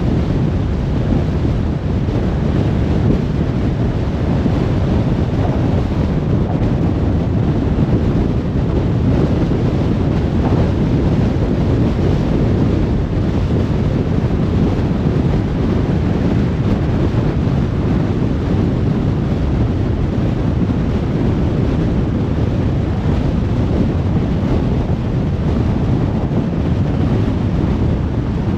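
Highway traffic noise: a steady, continuous rush of tyres and engines with no single vehicle standing out, heaviest in the low range.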